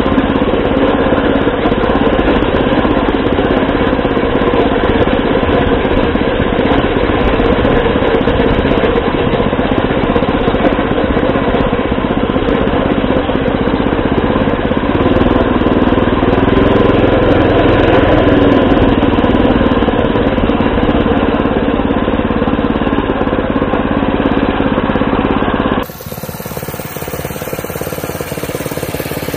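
Small four-stroke cultivator engine powering an IZh motorcycle, running steadily under way on a rough grass track, its revs rising and falling briefly about halfway. Near the end the sound drops abruptly and becomes quieter.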